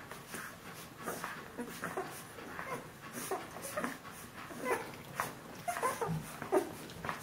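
Two-week-old Bernese Mountain Dog puppies nursing, with frequent short squeaks and whimpers coming irregularly from the litter.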